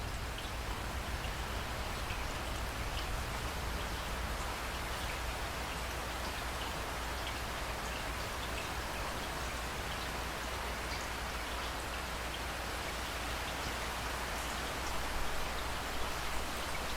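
Steady rain falling, with individual drops ticking sharply here and there over the even wash, and a steady low rumble underneath.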